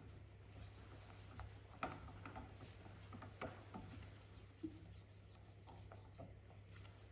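Faint scraping and a few light clicks of a utensil stirring gram flour (besan) as it roasts in melted butter in a pan on low heat, over a low steady hum.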